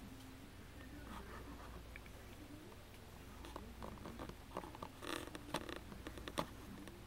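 Faint handling noises: soft rustles and a few small clicks, with a brief scuffing rush about five seconds in and a sharper click soon after, over a low steady hum.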